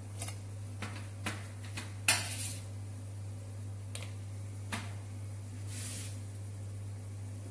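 Kitchen utensils clinking and knocking against pots and pans, about seven separate knocks with the loudest about two seconds in followed by a short scrape, as gnocchi are lifted out of the boiling water and handled.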